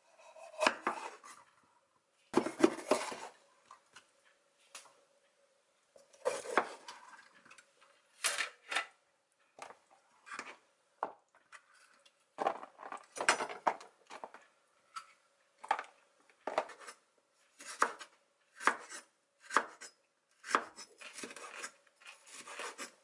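Kitchen knife slicing bell peppers on a wooden cutting board: irregular crisp cuts, with the blade knocking on the board, some strokes coming in quick runs.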